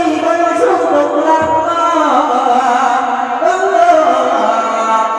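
Hát bội singing with its traditional ensemble, the melody bending and sliding, with one low drum stroke about a second and a half in.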